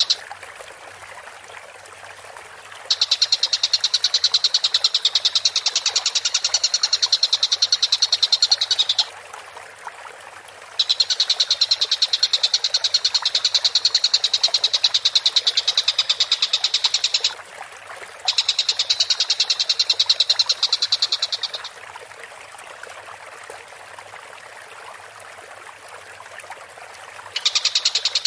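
Tengkek buto kingfisher singing vigorously: long, very fast, high-pitched rattling trills of a few seconds each, four runs separated by short pauses and one longer pause late on.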